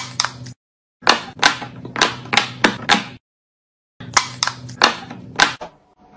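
A fidget toy being pressed over and over, giving sharp pops about three a second. The pops come in short runs broken by abrupt silent gaps.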